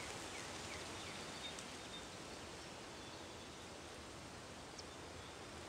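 Faint outdoor ambience: a steady low hiss of wind with a few faint, high bird chirps.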